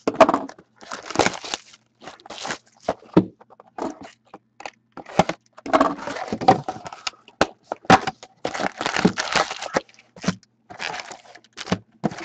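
Crinkling, crackling and tearing of packaging as a Black Diamond hockey card box is opened by hand, with its foil card packs rustling and clicking as they are pulled out and stacked on the table.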